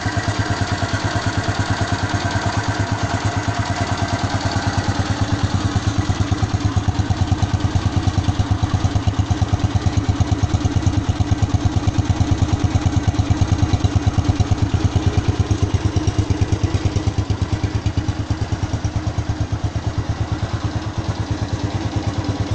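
Honda Phantom motorcycle engine idling steadily as it warms up, with an even, rapid beat of firing pulses.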